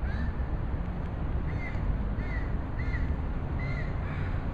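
A crow cawing, about five short caws in a loose series, over a steady low rumble of street noise or wind.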